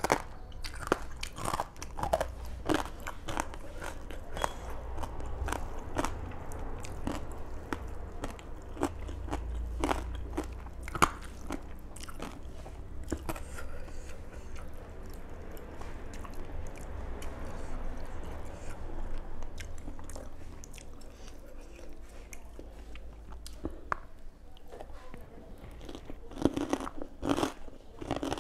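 Close-up eating sounds: crunching bites and chewing, with sharp crackles thickest in the first dozen seconds and again near the end, and softer chewing between.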